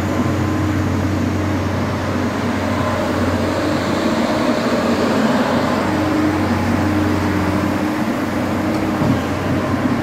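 Hydraulic excavator's diesel engine running steadily under working load, with tones that shift a little as the boom and bucket are worked.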